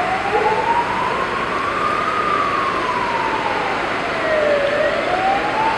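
Emergency vehicle siren wailing: its pitch rises slowly for about two seconds, falls back over the next two and a half, and starts to rise again near the end, over a steady hiss of street noise.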